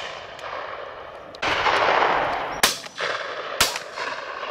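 Shotguns firing at driven game birds: two loud shots about a second apart in the second half, with fainter, more distant shots from other guns around them. A loud rushing noise swells for about a second just before the first loud shot.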